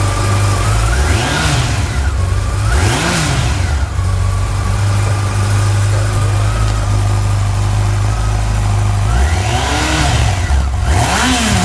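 2014 Yamaha FJR1300's inline-four engine idling through its stock exhaust, blipped four times: two short revs near the start and two near the end, each rising in pitch and falling back to idle.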